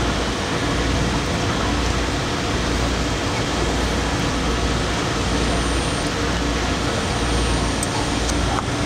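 Steady machine-shop drone: a constant hum and hiss of running machinery that holds level throughout.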